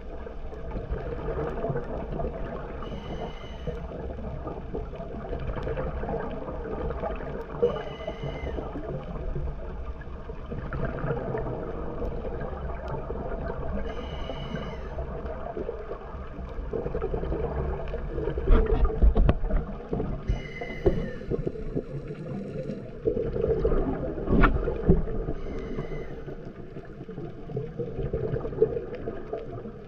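Scuba diver's regulator breathing underwater: a short hiss about every five to six seconds, with a constant low rumble of exhaled bubbles between them. The bubbling is loudest about two thirds of the way through.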